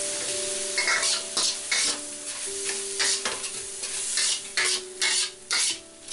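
A metal spatula stirring and tossing chicken, shrimp and vegetables in a hot wok. Sizzling is heard at first, then about a second in come irregular scraping strokes, roughly two a second, with sizzling between them. Soft background music plays underneath.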